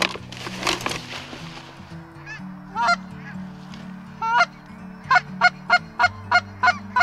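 Black brant geese calling: a few scattered calls, then a rapid run of calls about three a second near the end, over background music with sustained low notes. A rustling noise fills the first two seconds.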